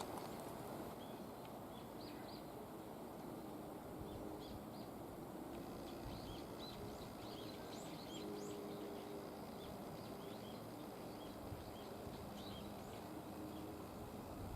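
Birds chirping, short high calls that become busier about halfway through, over a quiet steady low hum and background noise.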